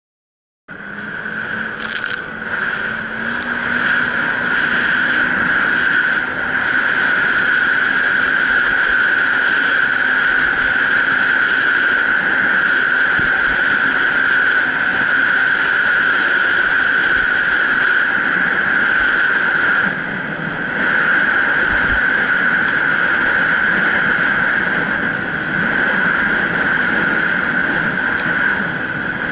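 Jet ski running at speed: a steady high whine over a broad rush of noise, starting about a second in. The lower engine note rises in the first few seconds, and the sound dips briefly about twenty seconds in.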